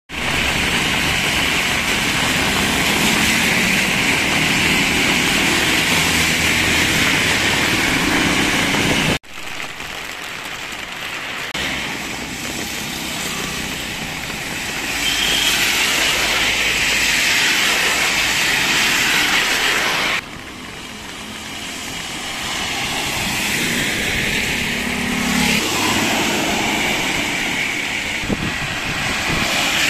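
Rain hissing steadily while cars drive past on flooded asphalt, their tyres swishing through standing water, with low engine rumble beneath. The sound changes abruptly about nine and twenty seconds in, with quieter, softer hiss after each change.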